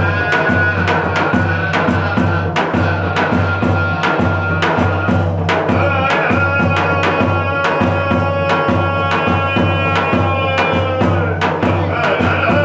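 Davul bass drum beaten in a steady rhythm, with a melody of long held notes played over it.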